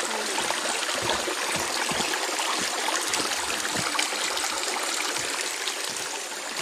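Shallow stream rushing over rocks: a steady wash of running water that eases slightly near the end, with a few soft low thumps.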